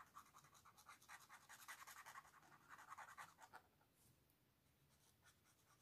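Faint scratching of a pen tip on paper as blue is coloured in with quick, short back-and-forth strokes, stopping a little over halfway through.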